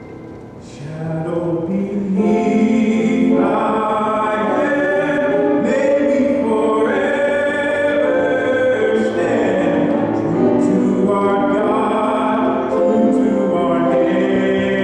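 Choir singing with musical accompaniment, swelling up over the first couple of seconds and then holding at a steady level.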